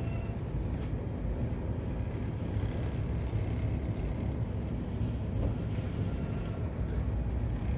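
A boat's engine running steadily, heard as a low, even drone inside the wheelhouse.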